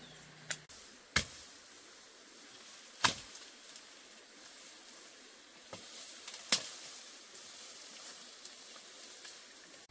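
A handful of sharp knocks or strikes at irregular intervals, about five in all, over a faint steady hiss.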